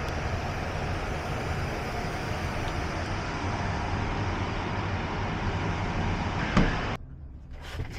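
Steady outdoor traffic noise. About six and a half seconds in there is a thump, and then the noise cuts off sharply to a much quieter inside sound.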